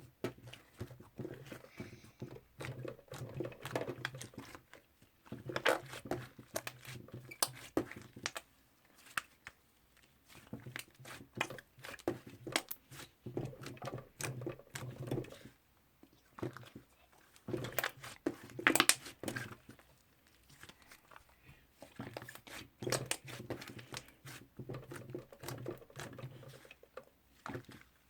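Toffee slime being squished, stretched and poked by hand: irregular sticky clicks and crackles in clusters, with a few short pauses.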